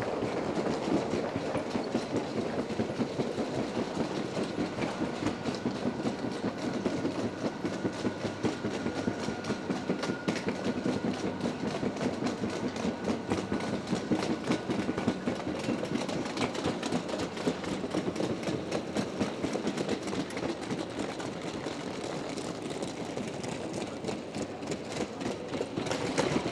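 Wheels rolling over a tiled floor, a continuous rapid rattling clatter. A faint steady tone sounds under it through the middle.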